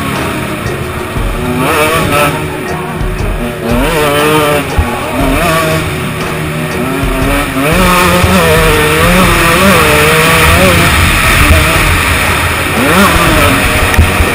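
KTM 125 EXC two-stroke enduro motorcycle ridden hard on a dirt track, its engine pitch rising and falling over and over as the throttle is opened and eased.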